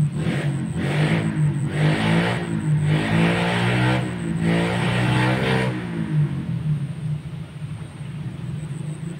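Motorcycle passing on a road, its engine revving up in several surges, loudest for the first six seconds and then fading to a low rumble.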